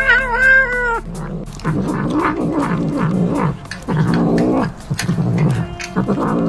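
A cat gives one long, rising meow, then makes low, wavering growling grumbles in bursts while eating, with sharp clicks among them.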